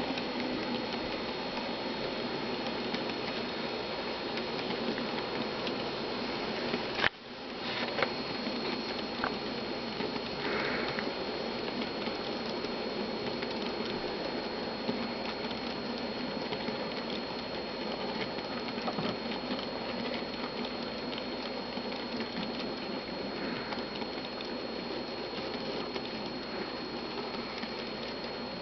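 N scale grain hopper cars rolling past on model track, their small metal wheels making a steady fine pattering clatter over the rails, with a thin steady high whine under it. A single sharp click about seven seconds in.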